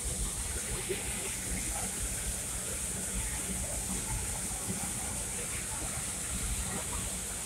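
Steady rumble and hiss of a small steam train running along the track, heard from an open passenger car behind the locomotive.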